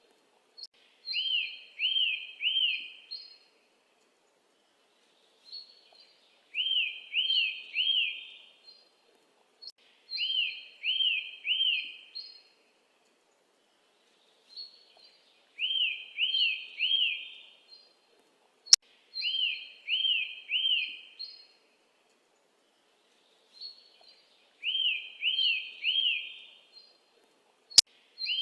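Bird song: the same phrase repeats about every four to five seconds, three arched chirps followed by a few short, higher notes, against a completely silent background. Two sharp clicks break in, about two-thirds of the way in and again near the end.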